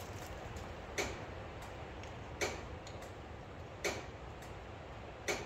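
Regular ticking: a sharp tick about every second and a half, evenly spaced, over a faint low steady hum.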